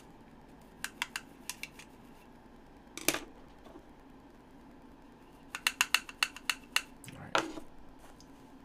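Small sharp clicks and taps of hard objects being handled: a few about a second in, a short rustle near three seconds, then a quick run of about eight clicks and another rustle near the end.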